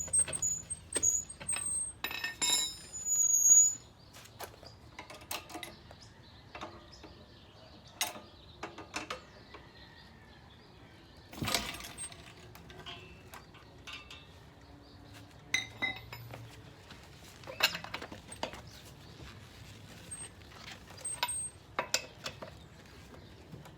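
Metal hand tools and car brake parts clinking and knocking at irregular intervals, with a run of ringing metallic clinks about two seconds in and a heavier knock near the middle.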